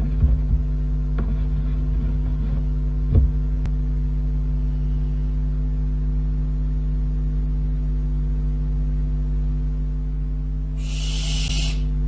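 Steady mains hum, with a few knocks in the first few seconds. Near the end comes one hoarse, hissing barn owl call about a second long.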